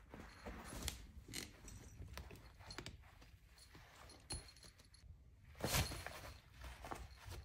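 Small bell on a Siamese cat's collar jingling faintly as the cat paws and scrabbles at a fabric pet tent, with soft rustling and light taps throughout and a louder rustle about six seconds in.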